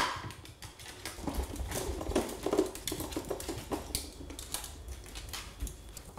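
A pet raccoon rummaging in a plastic toy kitchen oven and its pull-out tray: a run of light, irregular plastic clicks and rattles.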